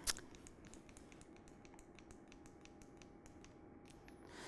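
Faint laptop key clicks: one sharper click, then a string of light, quick taps as the slides are paged through.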